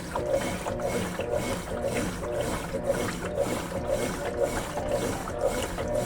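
Top-loading washing machine agitating a load of clothes in water: the agitator swishes back and forth in an even rhythm of a few strokes a second, churning and sloshing the wash.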